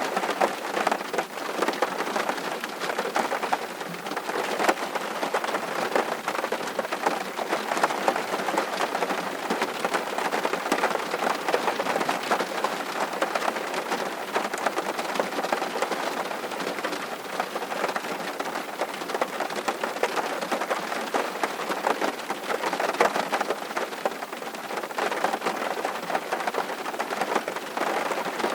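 Steady summer rain falling, a constant hiss with many individual drops ticking close by, unchanging throughout.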